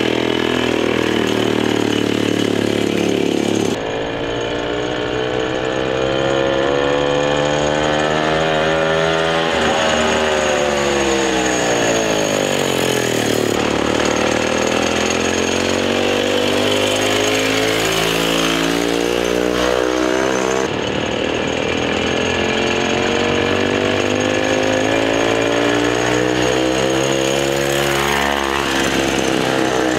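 Small pull-start two-stroke engine, one taken from a concrete saw, powering a minibike as it is ridden: a buzzy engine note that climbs and falls in pitch as the throttle is worked. The sound changes abruptly a few times, jumping to a different pitch and loudness.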